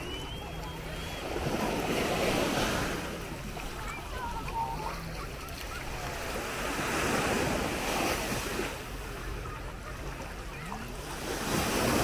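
Small Baltic Sea waves breaking and washing up the sandy shore, the surf swelling three times about five seconds apart.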